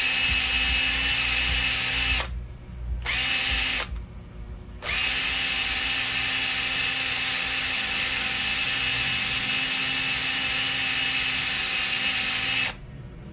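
Cordless drill spinning a Q-tip to polish the brass inside a carburetor, a steady motor whine. It stops about two seconds in, runs again briefly, starts up again about five seconds in, and cuts off near the end.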